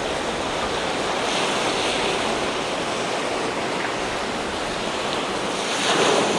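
Choppy sea water sloshing and breaking, with wind buffeting the microphone; the wash swells twice, about a second and a half in and again near the end.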